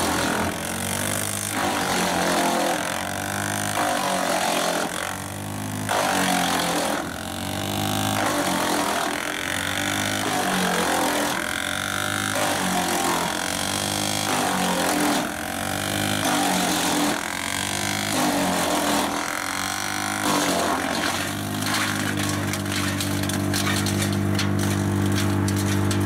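A machine's engine running, its pitch dipping and recovering about every two seconds for most of the stretch. In the last few seconds it runs steady.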